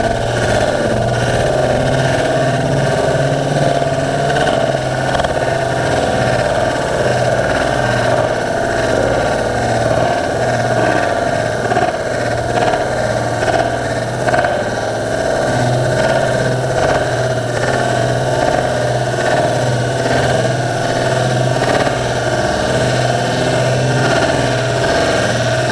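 Power ice auger drilling through the ice, heard from underwater as a steady, muffled engine drone with a constant noisy grind.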